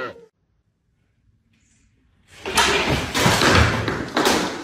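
About two seconds of silence, then a loud clattering, scraping noise with two sharp knocks about a second and a half apart.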